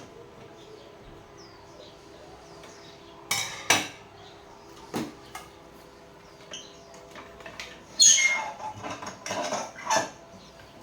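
Hard objects clinking and knocking, as when metal tools or parts are picked up and set down: a few separate knocks, then a quick cluster of clatter near the end. Faint chirps sound in the background early on.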